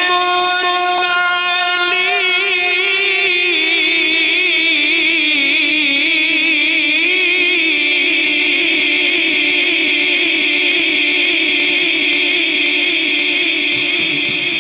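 A male qari reciting the Quran in the melodic tilawat style, holding one long line without a break while his pitch wavers in fine ornaments. The voice eases off slightly near the end.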